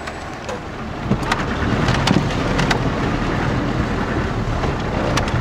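4x4 engine running low as the vehicle wades through a river, heard from inside the cab, with water rushing and splashing around it and a few sharp knocks.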